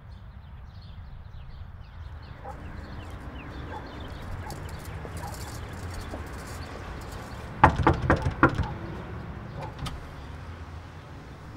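Knocking on a front door, a quick series of sharp raps about three-quarters of the way through, over a steady low outdoor rumble.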